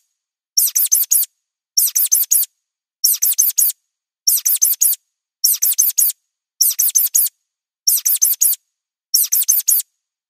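Looped mouse squeak sound effect: bursts of four quick, high-pitched squeaks repeating a little more than once a second, with dead silence between bursts.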